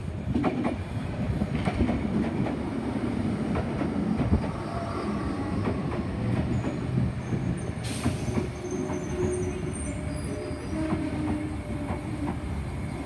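Sydney Trains Tangara double-deck electric train pulling into a platform and slowing to a stop: a steady rumble with wheels clicking over rail joints, a short hiss about eight seconds in, and faint brake squeal after it. No chopper-motor whine is heard, which the observer takes to mean it is braking on its Westinghouse air brakes.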